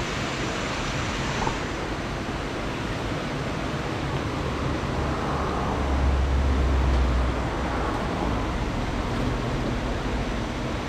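Steady rushing of a flowing river, with a low rumble swelling for about a second and a half past the middle.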